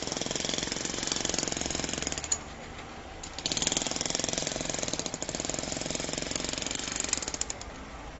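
Jackhammer hammering in two long bursts of rapid, evenly spaced blows, stopping for about a second near the middle before starting again. A steady low hum runs underneath.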